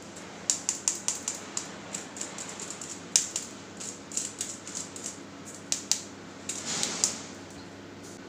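Stainless steel mesh sieve tapped by hand to sift flour and cocoa powder into a bowl: a run of irregular light taps, several a second, with a short rustle as the last powder shakes through, stopping about a second before the end.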